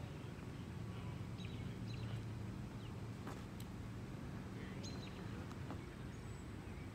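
Outdoor ambience: a steady low hum with a few short, scattered bird chirps and the odd faint click.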